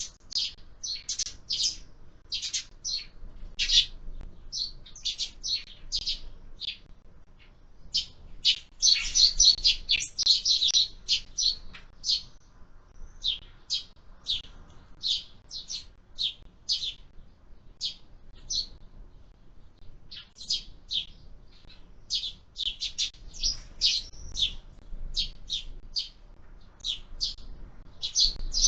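Sparrows chirping: a run of short, high chirps, busiest about eight to eleven seconds in, with a short lull around nineteen seconds.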